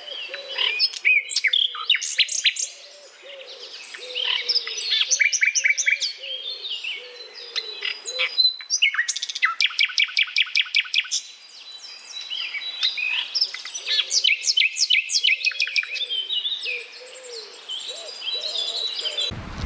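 Several birds singing and calling together in a busy chorus of high chirps and fast trills, with a low call repeating steadily underneath.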